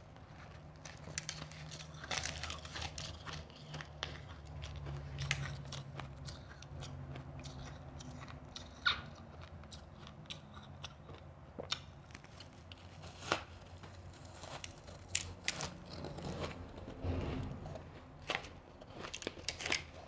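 Close-miked biting, crunching and chewing of shaved ice, with sharp crunches at irregular intervals as chunks of packed shaved ice are broken off and eaten.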